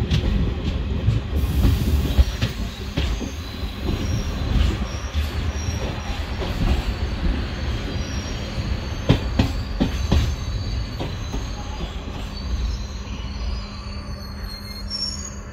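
Passenger train coaches running on a curve, heard from aboard: a steady low rumble of wheels on rail with a high wheel squeal coming and going. A few sharp clacks from the wheels come about nine to ten seconds in.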